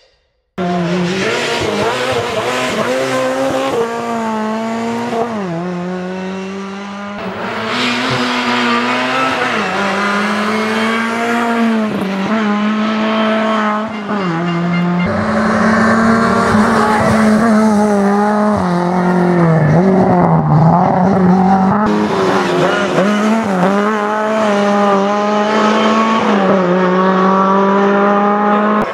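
Lada rally car's four-cylinder engine running hard at high revs. The pitch climbs and drops again and again through gear changes and lifts, starting about half a second in.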